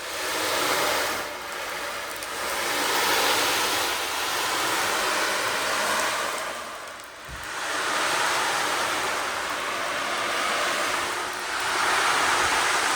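Surf-like wash of hissing noise that swells and recedes in slow waves a few seconds long, like ocean waves breaking, over faint steady low tones.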